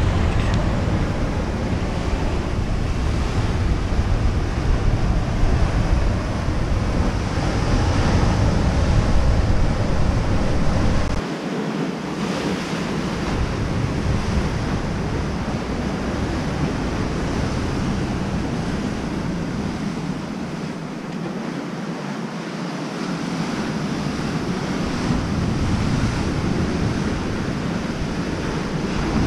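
Sea surf breaking and washing over a rocky shore in a steady rush. Wind rumbles on the microphone through the first part and drops away about eleven seconds in.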